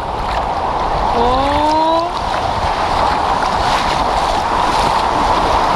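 Sea surf washing in at the shoreline, a steady rush of water close to the microphone, with wind noise on the mic. About a second in, a short rising vocal sound cuts through briefly.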